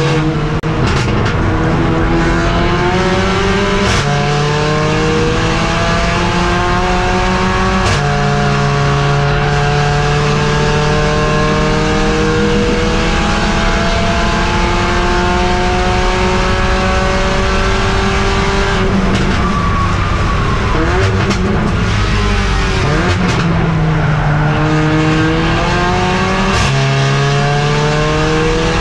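Mercedes-AMG CLA45 race car's turbocharged four-cylinder engine heard from the cockpit at full throttle, its note rising through the gears with upshifts about four and eight seconds in, then one long pull. Past the middle it lifts for braking with quick downshifts, then accelerates again with another upshift near the end.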